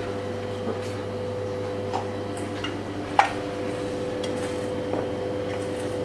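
A utensil stirring a minced chicken-liver mixture in a stainless steel bowl, with several short clinks against the metal, the sharpest about three seconds in. A steady electrical hum runs underneath.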